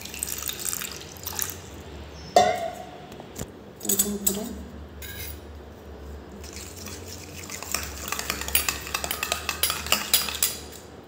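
Water poured from a steel vessel into a steel bowl of dry spice powders, then a sharp metallic clink about two seconds in. Through the second half a steel spoon stirs the spice-and-water mix, clicking and scraping rapidly against the steel bowl.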